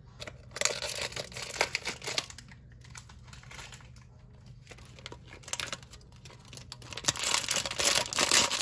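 Metallic gold foil wrapper crinkling as it is handled and torn open by hand. It comes in uneven bursts, loudest near the end.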